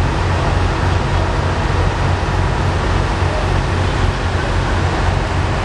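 Heavy engine running steadily, a constant low drone under a broad rush of noise.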